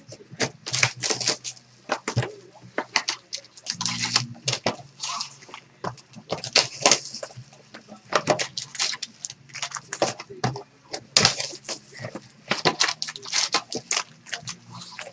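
Foil and plastic wrappers on packs of baseball cards crinkling and tearing as the packs are ripped open and the cards pulled out by hand. It is a quick, irregular run of crackly rustles.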